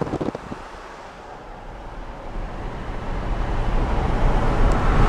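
Car driving along, heard from inside the cab: a brief buffet of wind at the open window, then a low engine and road rumble that grows steadily louder from about two seconds in.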